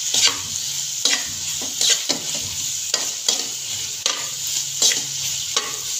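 A spoon scraping and stirring grated apple-and-carrot halwa around a metal pan, with a steady sizzle of frying in ghee; scrapes come roughly every half second to a second. It is the roasting (bhunai) stage, cooked until the ghee separates.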